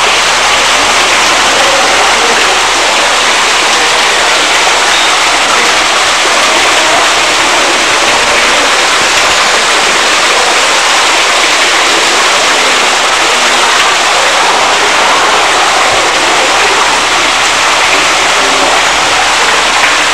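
Waterfall rushing: a loud, steady, even noise.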